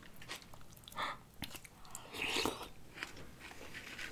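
Close-miked biting and chewing of crispy fried sushi: a run of small crunchy crackles and mouth sounds, with a louder, breathier sound a little past two seconds in.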